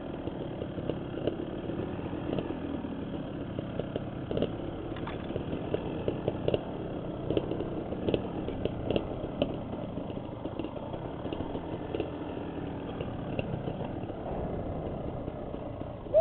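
Dirt bike engine running steadily at low revs while the bike crawls over a rocky trail, with scattered clicks and knocks from rocks and the bike.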